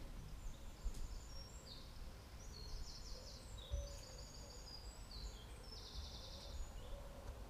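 Faint outdoor ambience: a low rumble of wind on the microphone, with small birds chirping in quick high trills on and off through the middle.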